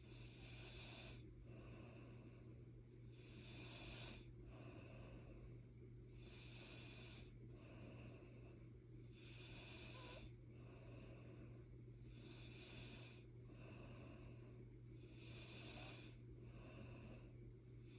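A sleeping person breathing heavily and snoring softly: faint, hissy, wheezy breaths in and out, about one a second, with a steady low hum underneath.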